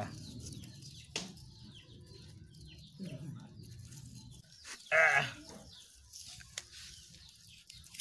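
A goat bleating: one loud, wavering call about five seconds in, with a fainter call a couple of seconds earlier. A sharp click sounds about a second in.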